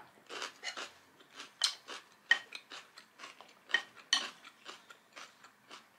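Close-up crunching and chewing of raw bell pepper, a run of irregular crisp crackles and wet clicks at different loudness. Near the end, a wooden spoon scoops rice from a ceramic bowl.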